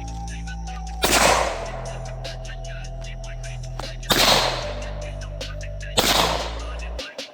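Three pistol shots, the second about three seconds after the first and the third about two seconds later, over background music with a steady bass line.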